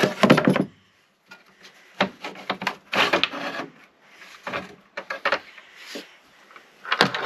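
A thickness planer's parts being handled: a series of short clattering knocks and scraping rubs, in separate bursts about a second apart.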